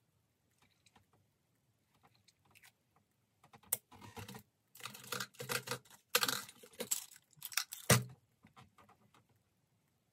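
Handling noise of small objects close to the microphone: a few faint ticks, then bursts of rustling, rattling and clicking from about four seconds in, ending in a sharp knock near eight seconds.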